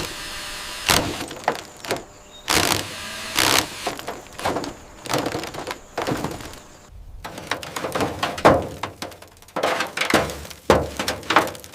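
A rapid, irregular run of knocks, bangs and clattering impacts, typical of hand work on metal. A faint steady high tone runs under them until about seven seconds in.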